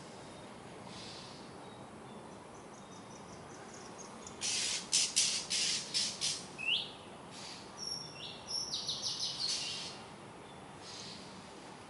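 Oriental magpie robin giving two bursts of harsh, rasping calls, the first about four seconds in and ending in a short rising whistle, the second a quick run of short notes with a thin whistled tone. The uploader takes these calls for a scared bird screaming at night.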